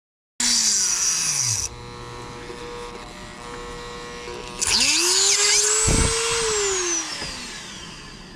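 Small electric drill boring a hole in a metal knife part. It runs loud for about a second and slows, hums quietly, then spins up again about five seconds in and winds down near the end.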